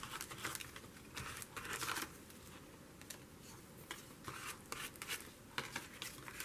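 Faint, irregular rustling and scraping of thin painted paper as it is handled and smoothed down with a plastic card.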